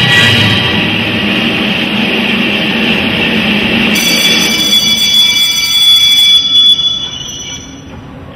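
Dance performance soundtrack of sustained, screeching high tones over a noisy wash, like squealing metal. A new set of higher tones comes in about four seconds in, and the whole sound fades down near the end.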